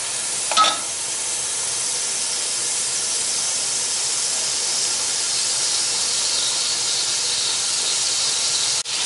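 Mutton and tomatoes sizzling steadily in hot oil in an aluminium pot as they are bhuna-fried, with one clink of a slotted metal spoon against the pot about half a second in.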